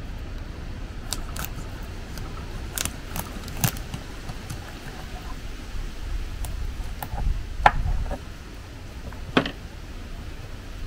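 Scattered light clicks and knocks over a low steady rumble, the sharpest two coming about two-thirds of the way through and near the end.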